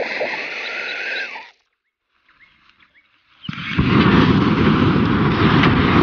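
A handheld butane torch hisses for about a second and a half against a home-made jet built from thousands of matches. About three and a half seconds in, the match heads catch all at once and the jet burns with a sudden, loud rush of flame and crackling that keeps going.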